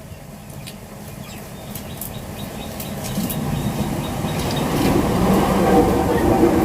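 A steady rumbling noise with a faint hum in it, growing gradually louder over several seconds.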